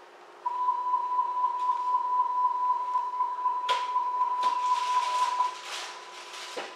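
Door-closing warning tone of a Hamburg DT3-series U-Bahn car: one steady high beep, starting about half a second in and lasting about five seconds. Near its second half comes a sharp click and then clattering noise from the doors closing.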